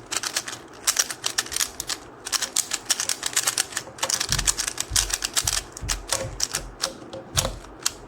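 QiYi Sail 3x3 speed cube being turned fast with finger tricks: a rapid, uneven run of plastic clicking and clacking as the layers snap round, with a few dull knocks about halfway through.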